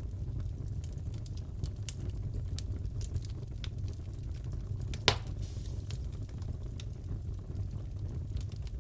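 Wood fire crackling in a fireplace: scattered small snaps over a low steady rumble, with one loud pop about five seconds in.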